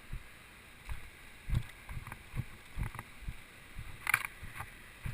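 Footsteps of a hiker climbing a steep trail: dull, uneven thumps about two a second, with a brief scraping rustle about four seconds in.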